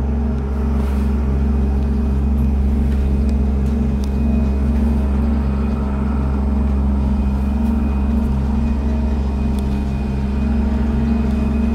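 Steady low mechanical hum inside a moving cable car gondola cabin, with no change in pitch or level.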